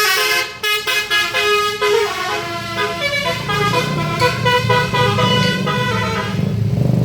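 Bus's 'telolet basuri' musical horn playing a quick, flute-like melody, its notes changing every fraction of a second. Near the end the tune stops, leaving the bus engine's rumble.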